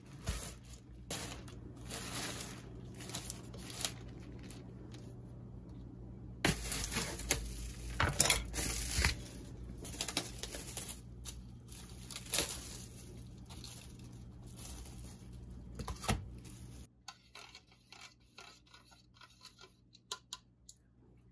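Paper wrapping and plastic takeout packaging rustling and crinkling as food containers are unpacked by hand and set down on a wooden tray, with light knocks and clicks. The crinkling is densest about six to nine seconds in; later only small clicks remain.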